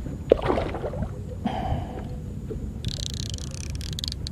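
Hooked tilapia splashing at the water surface while being played on a fishing pole, in several separate bursts, the longest about three seconds in. A sharp knock comes just before the first splash, over a steady low wind rumble on the microphone.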